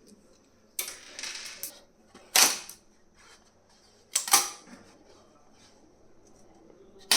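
Sharp cracks and clatter of 3D-printed plastic support material being snapped and handled. There is a crack with a short rattle about a second in, a loud crack just after two seconds, a quick double crack around four seconds, and one more at the end.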